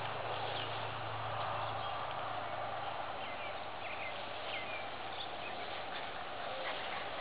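Steady outdoor background noise with a low hum that fades out about two seconds in, and a few faint short chirps.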